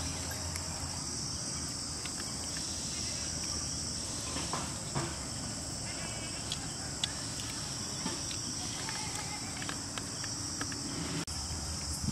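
Steady high-pitched chirring of an insect chorus, with a few faint clicks.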